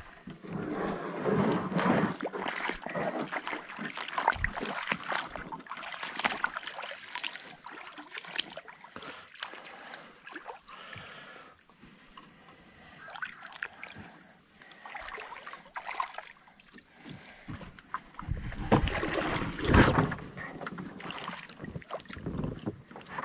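A creek boat's hull being pushed off a muddy bank into shallow water: scraping and rubbing of the hull with water sloshing and splashing in irregular bursts, loudest near the end.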